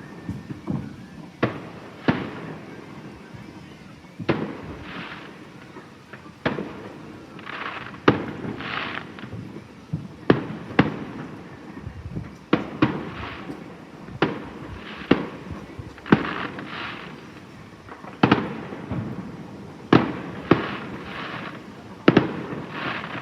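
Fireworks exploding overhead: about twenty sharp bangs at irregular intervals of one to two seconds, each trailing off in a rolling echo.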